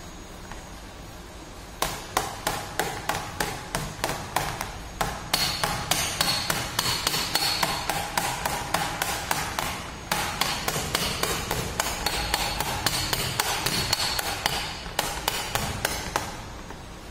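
Small body hammer tapping rapidly on the edge of a plastic car body panel, about four even strikes a second with a slight ring. The tapping starts about two seconds in, breaks off briefly twice, and stops shortly before the end.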